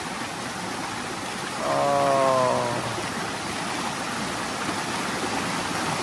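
Waterfall and the shallow stream below it rushing over rocks: a steady, even rush of water. About two seconds in, a short, drawn-out voice sounds over it.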